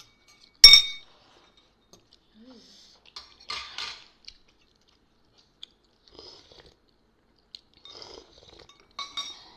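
Metal spoons clinking against porcelain soup bowls, with a sharp ringing clink about a second in and another near the end. Between them come quieter sounds of eating: chewing and slurping soup from a spoon.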